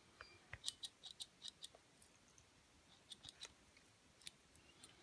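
Faint, sharp metallic clicks of the small scissors on a Victorinox Huntsman Swiss Army knife being snipped open and shut, a quick run of clicks about a second in and a few more near the end.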